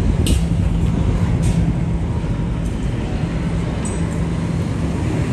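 Steady low hum of a vehicle engine running close by in city street traffic, with a couple of short, faint hisses in the first second and a half.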